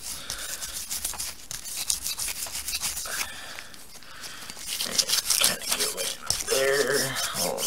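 Cleaning brush scrubbing the freshly oiled metal of an AR-15 bolt carrier in quick, repeated strokes, working the lubricant in to loosen fouling. A voice comes in near the end.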